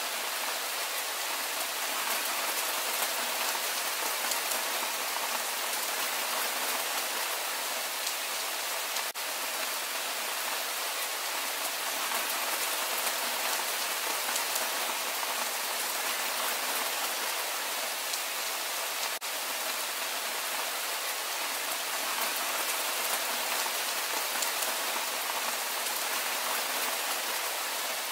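Steady rain falling, an even, dense hiss of drops.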